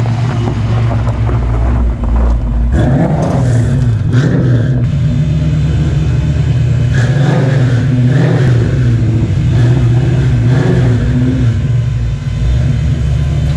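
Fox-body Ford Mustang's 387 cubic-inch stroker small-block Ford V8 running at low speed, its exhaust note steady and loud with a wavering, uneven rhythm.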